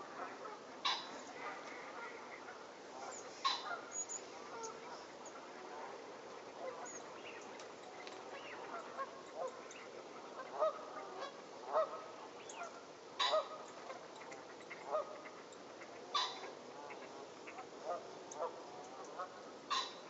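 A flock of Canada geese honking, with many short calls overlapping throughout and a handful of louder, nearer honks standing out every few seconds.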